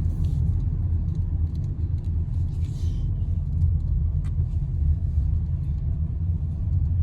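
Steady low rumble of a car driving, with a few faint clicks and ticks over it.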